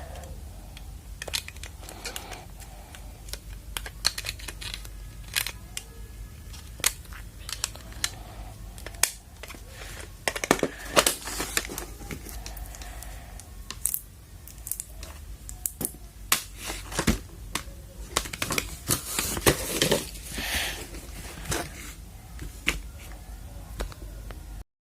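Packaging being handled by hand during an unboxing: paper and plastic wrapping crinkling and tearing, with many scattered sharp clicks and taps. The handling is busiest in the middle and again near the end, and the sound cuts off suddenly just before the end.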